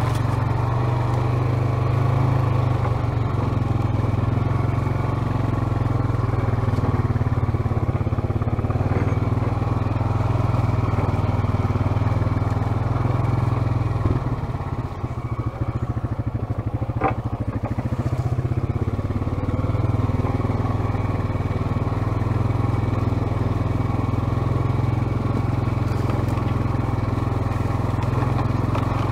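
ATV engine running at a steady throttle under way, with a short easing-off and a click about halfway through before it pulls steadily again.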